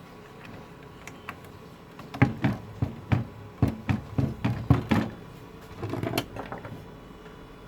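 A quick run of about a dozen sharp knocks and clicks, then a smaller cluster a second later: hard parts being handled on a workbench.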